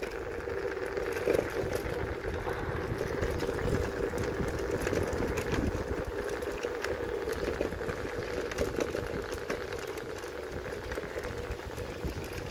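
Electric kick scooter riding over a wooden plank path: a steady motor whine under a rumble and a run of faint clicks from the wheels crossing the boards.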